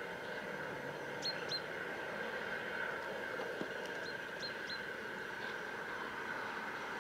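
Distant Rhaetian Railway G 4/5 steam locomotive working its train, heard as a steady hiss with no distinct chuffs. A few short high chirps come about a second in and again around four seconds.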